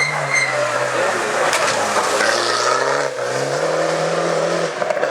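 Rally car engine under hard acceleration on a stage, its pitch falling and then jumping back up about three seconds in, as at a gear change. A sharp crack sounds about a second and a half in.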